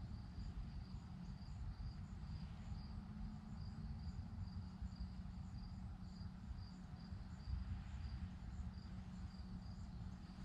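Faint insect chirping, a thin high pulse repeating about twice a second, over a low steady background rumble.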